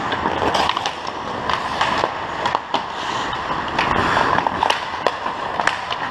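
Ice hockey skates scraping and carving on the ice, with frequent sharp clacks of sticks and puck.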